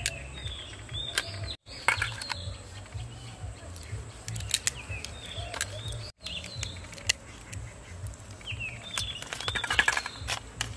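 Raw crab shells cracking and clicking as the crabs are snapped in half by hand and the pieces are handled in a steel bowl, heard as scattered sharp clicks. Small birds chirp now and then in short calls that rise and fall.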